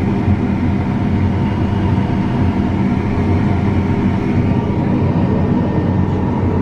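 Combine harvester's diesel engine running steadily under heavy load as the machine works through deep mud ruts, its tires slipping.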